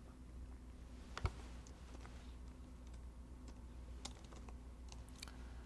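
Faint, scattered clicks of a computer keyboard, a handful of separate key presses with the loudest about a second in, over a low steady hum.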